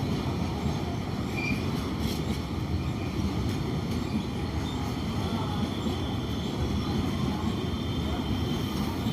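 Indian Railways WDG4 diesel locomotive's EMD two-stroke V16 engine running with a steady, deep hum. A faint, steady high-pitched tone comes in about halfway through.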